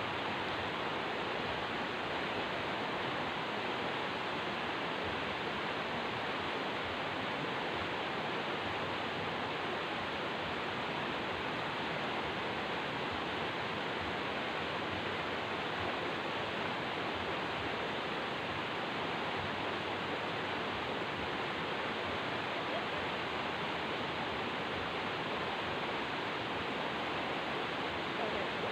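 Waterfall's water pouring, a steady, unbroken rush of noise.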